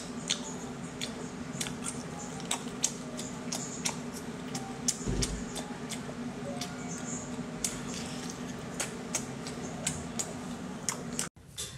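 Wet sucking and smacking at a whole octopus head, with many irregular sharp mouth clicks, over a faint steady low hum.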